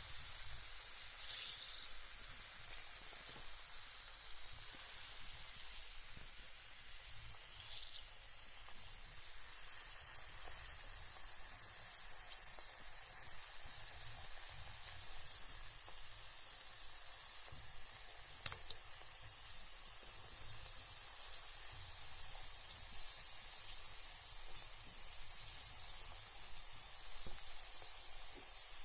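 Carbonated bath bomb fizzing in bathwater: a steady, high-pitched fizz of escaping gas bubbles, with an occasional faint tick.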